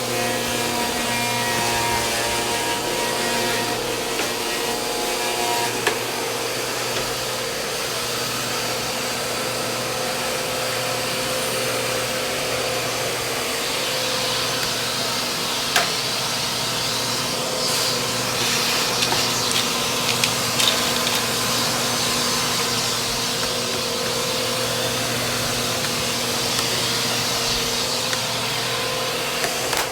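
Vacuum cleaner running steadily, a constant motor hum and rush of air, with a few sharp clicks: one about six seconds in, one near sixteen seconds, and a small cluster a little later.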